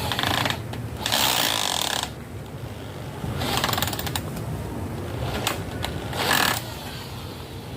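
Tool work on wood in four short bursts of harsh, hissing noise, each half a second to a second long, with a few sharp clicks between.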